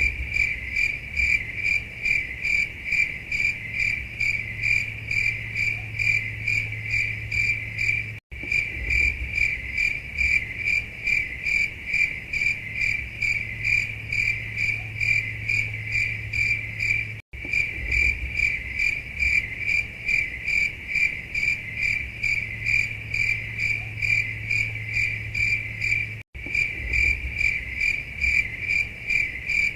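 A cricket chirping steadily at about three chirps a second: the stock 'awkward silence' effect. It is a looped recording that drops out for an instant about every nine seconds, with a faint steady low hum underneath.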